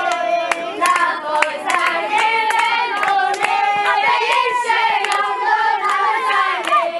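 A group of boys singing together with hand clapping, the claps irregular and frequent throughout.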